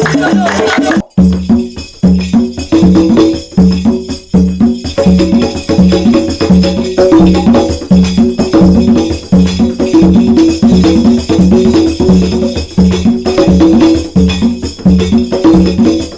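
A folk instrument playing a fast, repeating riff of short notes with a rattling, jingling edge. The music cuts out briefly about a second in, then picks up again.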